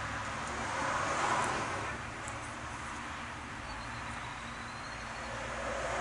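Steady rushing background noise, swelling about a second in and easing back by two seconds.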